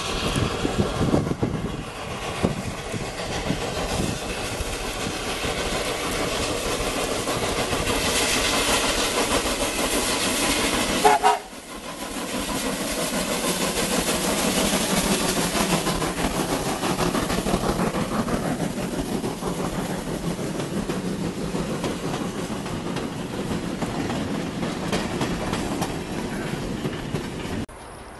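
Santa Cruz Portland Cement #2, a small 0-4-0 tank steam locomotive, running past at close range with its cars clattering over the rails. A short pitched sound comes near the middle, just before a sudden brief dip in level.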